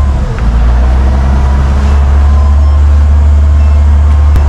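Fishing boat's engine running steadily under way, a loud, even hum with a brief dip about a quarter second in.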